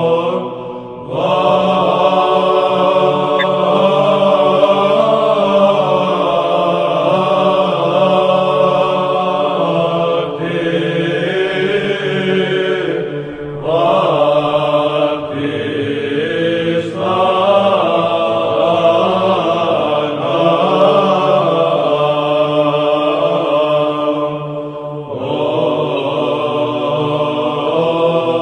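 Orthodox church chant: voices sing long, held phrases over a steady low note, with short breaths between phrases about a second in, near the middle and about three-quarters through.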